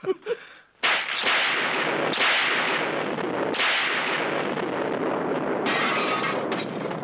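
Film sound effect of a storm breaking: a sudden loud crash about a second in, then a steady rushing roar that swells several times.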